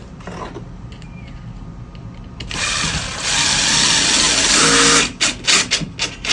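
Power drill boring into the wall, running steadily for about two and a half seconds, then several short bursts as the trigger is pulsed.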